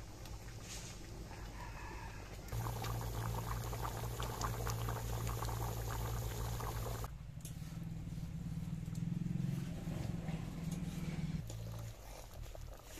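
Curry boiling hard in an iron kadai over a wood fire: a dense bubbling and popping. It is loudest from a couple of seconds in until about halfway, then eases under a steady low rumble.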